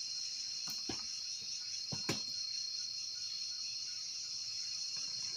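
Steady high-pitched insect chorus, like crickets, with a thin constant tone in it. Two short knocks come about one and two seconds in.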